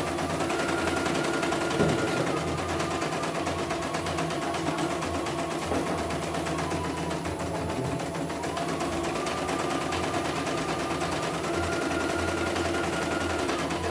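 CNY E900 computerized embroidery machine stitching a design: a steady rapid needle chatter with the hoop carriage's motor whine stepping up and down in pitch every few seconds. There is one sharper knock about two seconds in.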